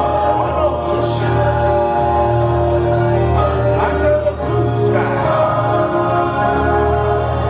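Choir singing with instrumental backing, holding long sustained chords over steady low notes.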